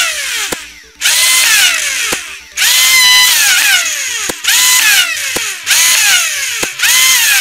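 Merlin brushless flywheel motors of a 3D-printed Nerf revolver (MHP Arms Shellington Magpie) whining as they spin up, a sharp click as each dart fires, then the pitch falling as the flywheels coast down. This repeats for about five shots, roughly one every second to second and a half.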